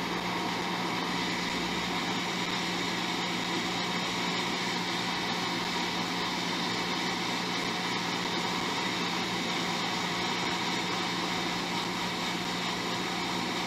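Hot air rework station blowing steadily over the board's solder pads, an even airy hiss with a faint hum.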